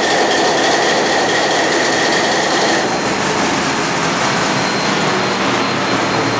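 ABC eight-cylinder marine diesel engine running loud and steady just after start-up, its revs up at about 600 rpm. A high steady whine over it stops about three seconds in.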